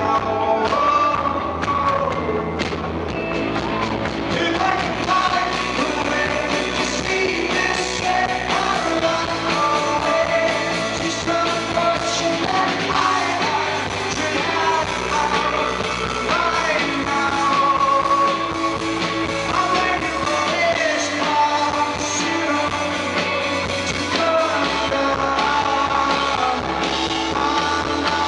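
Rock band playing live, with a male lead vocal singing over the instruments.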